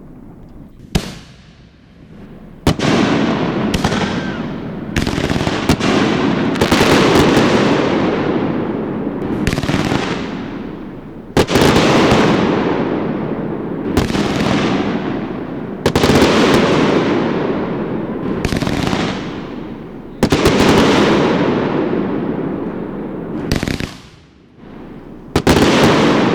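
Aerial fireworks shells bursting overhead in quick succession, about a dozen sharp bangs each followed by a long rolling rumble, with a short lull near the end before another burst.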